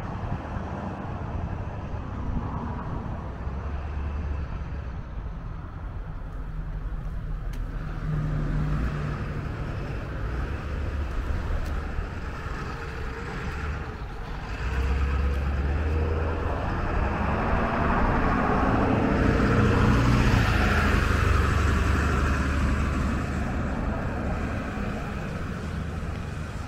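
Road traffic with a motor vehicle driving past, its engine and tyre noise rising to a peak about two-thirds of the way through and then fading.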